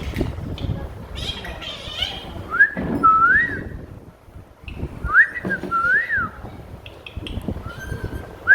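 A pet parrot whistling a two-part phrase, a short rising note followed by a rising-and-falling one, repeated twice, with another rising whistle starting near the end.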